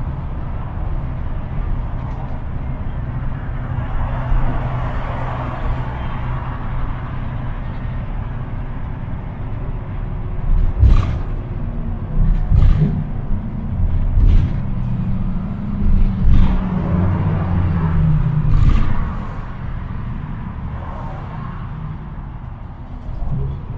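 NJ Transit bus on the move: steady engine and road rumble, with about five sharp knocks or jolts in the second half while the engine note grows stronger.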